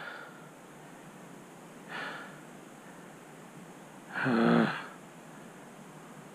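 A man breathing out heavily twice, then a short voiced sigh about four seconds in, the loudest sound here, over a faint steady hiss.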